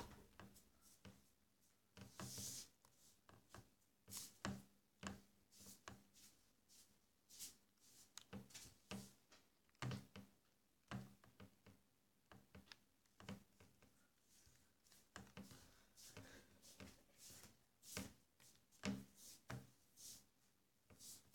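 Near silence broken by faint, irregular small clicks and knocks.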